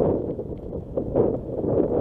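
Wind buffeting the microphone over the low rumble of a Nissan Qashqai rolling slowly along a rough gravel dirt track, with a few short knocks from stones under the tyres.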